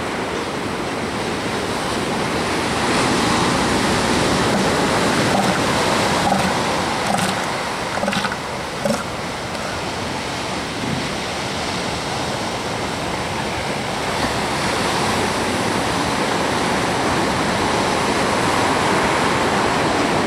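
Ocean surf breaking on a beach, a steady, loud wash of noise, with three brief knocks around the middle.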